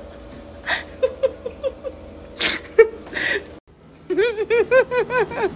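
A high-pitched voice squealing in a quick run of short rising-and-falling notes, about six a second, after a brief break in the sound.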